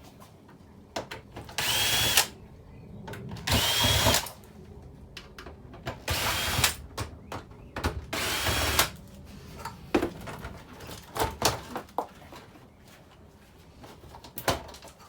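Power drill-driver backing screws out of a TV casing in four short runs of about half a second to a second each, the motor whining up at the start of each run, with knocks and clicks of parts being handled in between.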